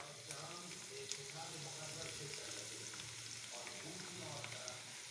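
Sliced red onions sizzling in hot oil with cumin seeds, just tipped into the pan, with a steady hiss and many small crackles.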